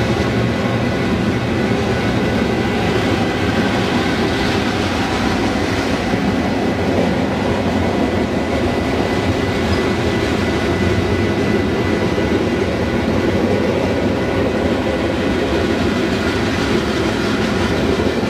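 Freight cars of a long mixed freight train rolling past at speed: a steady, loud rumble of steel wheels on rail.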